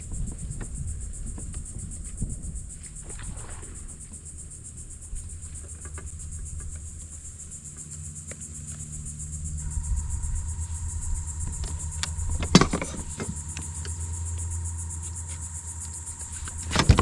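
A freshly caught black drum making its low drumming hum, growing stronger in the second half, with a steady high insect buzz behind it and one sharp knock about twelve and a half seconds in.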